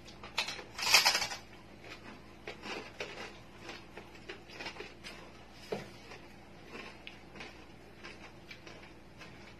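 Crunching bite into crispy roast pig skin (lechon) about a second in, the loudest sound, then scattered smaller crunches, chewing and clicks as the crackling is eaten by hand.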